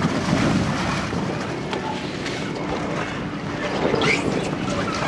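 Pool water sloshing and splashing around inflatable water-walking balls, with wind noise on the microphone. A short high cry rises about four seconds in.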